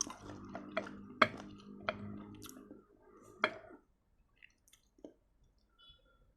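Close-up crunchy chewing of lime rujak, with sharp crisp crunches over a low hum. The crunching stops a little under four seconds in, leaving only a few faint mouth clicks.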